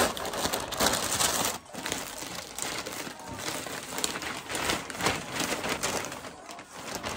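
Plastic and paper mailer bags crinkling and rustling as folded clothes are handled and packed into them, an irregular crackle that goes on throughout.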